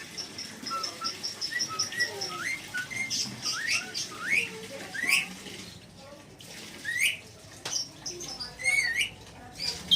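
A bird giving short whistled chirps that each glide sharply upward, about one a second, after a quick run of high ticking notes at the start.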